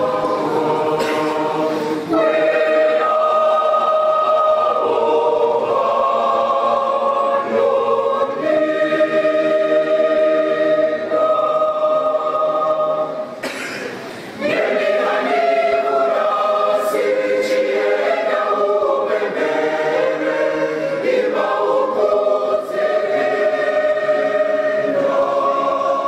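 Large mixed church choir singing a gospel song in several voice parts, holding sustained chords, with a short break between phrases about halfway through.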